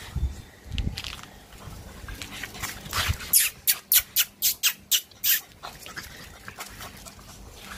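A dog making a quick run of about nine short breathy bursts, about four a second, for about two seconds in the middle.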